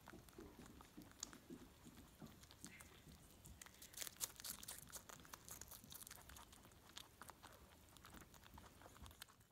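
Pet rabbit biting into and chewing a strawberry: a faint, rapid run of small crunching clicks, busiest about four seconds in.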